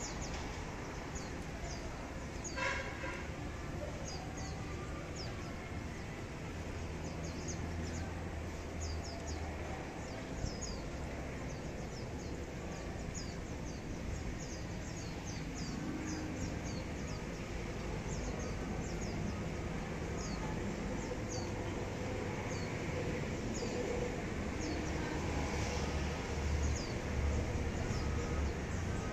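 Small birds chirping: short, high, quick notes repeated irregularly throughout, with one fuller call about two and a half seconds in. Beneath them runs a steady low rumble.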